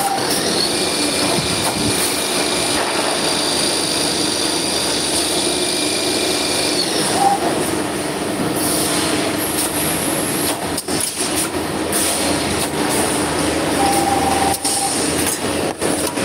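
Copper tube cutting and end-forming machine running: a steady mechanical noise with a high metallic whine, and a few sharp clicks in the second half.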